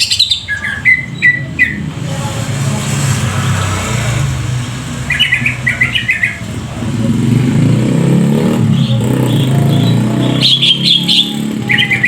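A bird giving short chirping bursts four times over the low, steady running of an engine, which swells in the second half.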